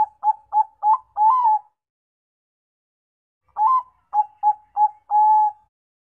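Bangkok-type perkutut (zebra dove) singing two phrases of its song. Each phrase is a quick run of short clipped coos ending on a longer held coo. The first phrase ends under two seconds in, and the second begins after a pause of about two seconds.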